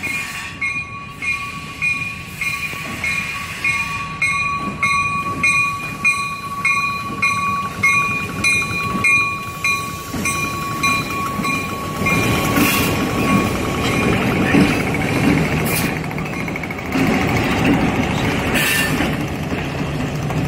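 Freight train passing through a level crossing. For about the first eleven seconds a bell rings about twice a second. After that the diesel locomotives rumble past, with a few sharp clanks from the wheels and cars.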